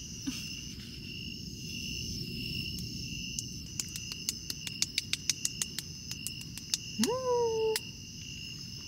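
Crickets chirping steadily, with a run of quick light pats from about four seconds in as cream is patted onto the face. Near the end a person gives a short hum that rises and then holds.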